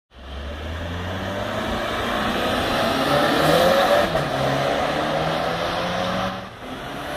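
Turbocharged 2.0-litre four-cylinder of a 2019 Jetta GLI, with a CTS Turbo catted downpipe and stock exhaust, pulling hard under acceleration: the engine note climbs in pitch, drops once about four seconds in as the DSG shifts up, then climbs again.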